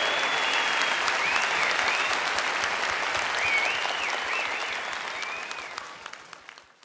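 Large concert audience applauding, with a few rising-and-falling whistles over the clapping. The applause fades out near the end.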